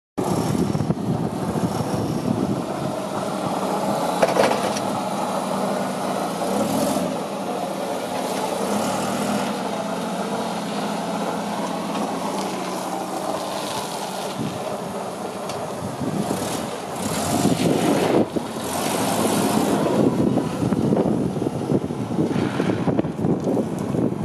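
1999 Toyota 42-6FGCU25 propane forklift's four-cylinder engine running as the forklift drives, getting louder for a few stretches and then settling back.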